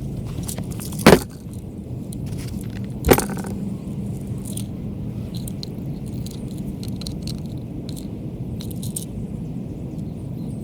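Small clinks and rattles of hands working with electrical parts and tools, with two sharp knocks about one and three seconds in, over a steady low rumble.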